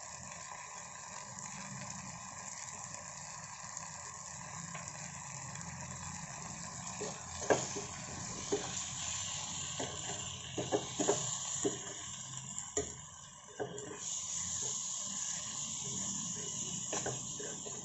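Leafy greens and tomatoes sizzling steadily in a non-stick pan, with a steel spoon scraping and knocking against the pan as the curry is stirred from about seven seconds in.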